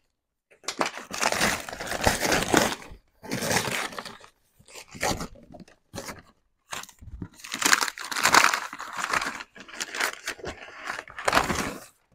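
A brown paper courier bag being torn open and crumpled by hand, in a run of rips of a second or more each with short pauses between them.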